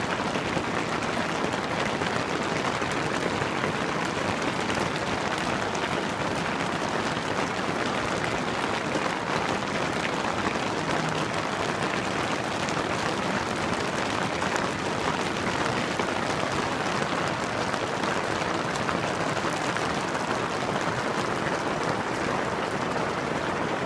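Steady rain falling, a constant even hiss with no distinct drops standing out.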